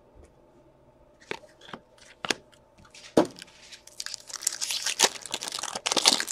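Trading cards and their foil pack wrapper being handled: a few sharp clicks and snaps, then from about four seconds in a dense run of crinkling and tearing.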